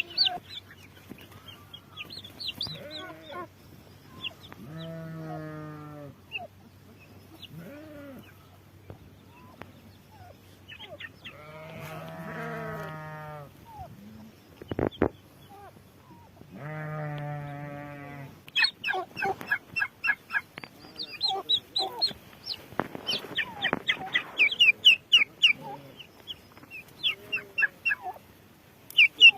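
Farm fowl calls: three long, wavering, lower calls from a larger farm animal in the first half. From about two-thirds of the way in comes a dense run of short, high, rapid peeps from young turkey poults.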